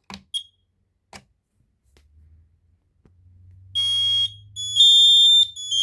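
Kidde combination smoke and carbon monoxide alarm sounding its horn: a loud, high-pitched beep pattern of half-second beeps with short gaps, starting about four seconds in. A couple of faint clicks and a short chirp come first.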